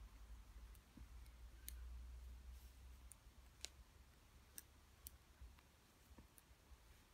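Faint, irregular clicks of wooden double-pointed knitting needles tapping against each other as stitches are knitted in the round.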